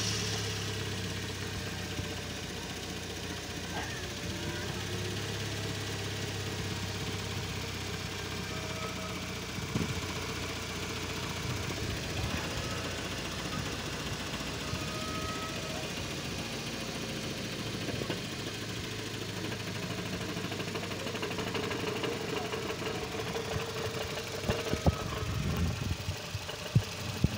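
2010 Nissan Sentra engine idling steadily, with a knocking from its damaged dual-mass flywheel. A few sharper knocks come near the end.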